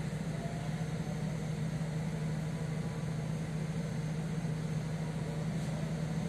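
A steady low mechanical hum, even and unchanging, with a faint hiss over it.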